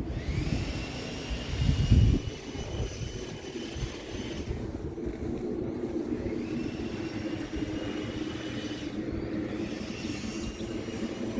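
A machine or engine running steadily with a low drone, with a faint whine that climbs in pitch and levels off three times, and one loud low thump about two seconds in.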